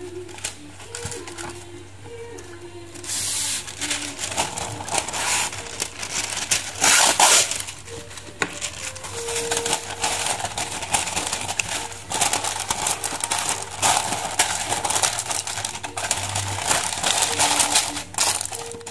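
Wax paper rustling and crinkling as a sheet is pulled from its box, torn off and pressed into a metal baking pan, loudest about seven seconds in. Background music plays underneath.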